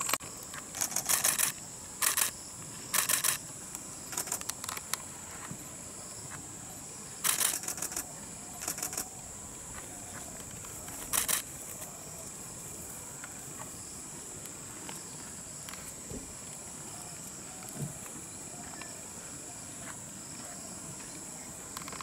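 Steady high-pitched insect drone in the scrub, with several short bursts of rapid clicking, each about half a second, in the first twelve seconds.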